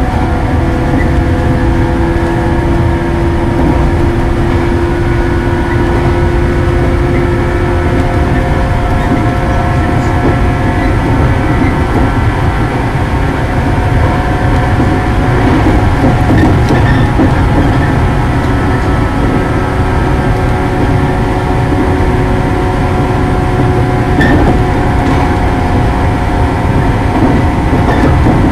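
Shinano Railway 115 series electric multiple unit running, heard from the driver's cab: steady rumble of wheels on track with several steady whining tones over it, the lowest dropping away about eight seconds in.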